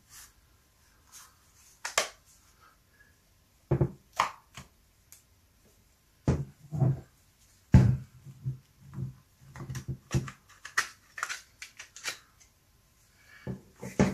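Irregular clicks and knocks of an INGCO brushless angle grinder's housing being taken apart by hand, with the parts tapping and bumping against a hard surface. The clicks are sparse at first and come more often in the second half.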